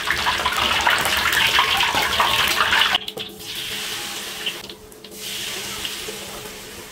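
Hot oil sizzling and crackling in a wok as battered tempe deep-fries. It is loud for about three seconds, then drops suddenly to a softer sizzle.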